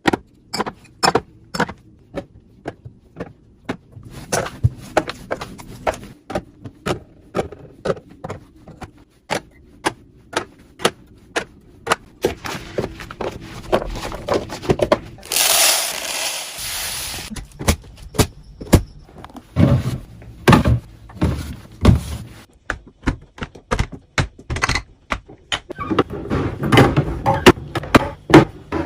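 Containers and food items being handled, set down and slid into place while restocking a fridge: a run of sharp clicks, knocks and scrapes. About fifteen seconds in, a steady hiss lasts a little under two seconds.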